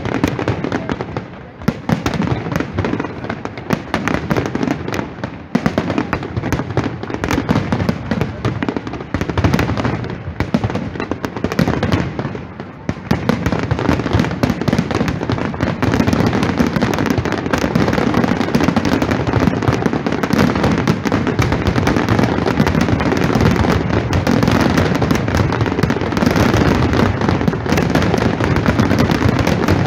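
Aerial fireworks display: a rapid string of bangs and crackling bursts. About halfway through it thickens into a louder, unbroken barrage of explosions.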